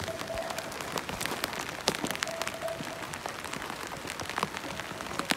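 Light rain falling, with many separate drops ticking on surfaces close by.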